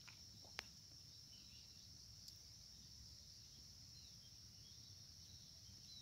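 Faint, steady high-pitched insect chorus, crickets or similar, with a few faint chirps and one sharp click about half a second in.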